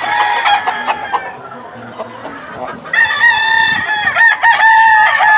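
Gamefowl rooster crowing: a long, held crow starting about three seconds in, after a shorter call in the first second.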